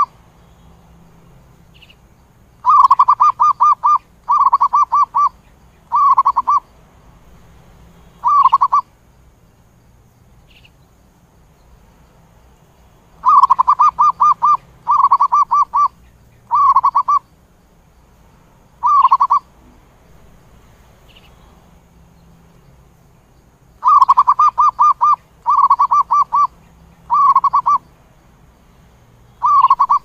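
Zebra dove calling: bouts of rapid trilled coos, each bout a long trill followed by three or four shorter ones, repeating about every ten seconds.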